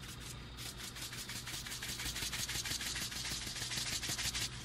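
Roasted salt shaken from a shaker into a stainless steel mixing bowl: a rapid rattle of salt grains, several shakes a second, that grows louder and stops near the end.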